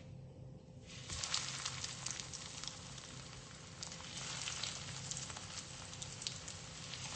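Breadcrumb-coated potato and pea tikkis sizzling and crackling as they are lowered into hot oil in a kadhai to shallow-fry. The sizzle starts suddenly about a second in and swells again around four seconds in as the second patty goes in.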